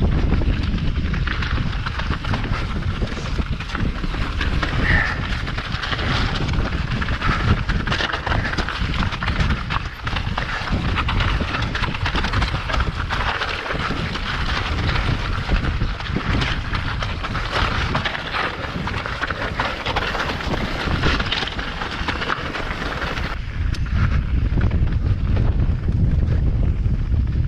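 Mountain bike descending a rough trail: wind buffeting the camera microphone over tyres crunching and the bike rattling with many small clicks. Near the end the higher crunching falls away and the low wind rumble grows.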